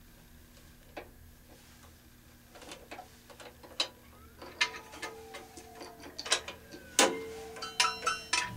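Small metal clicks and clinks as a scroll saw's quick-change blade holders and clamp handle are handled and fitted. The ticks are sparse at first and grow busier after a couple of seconds, with a sharper click followed by brief metallic ringing about seven seconds in, and a few more ringing clinks near the end.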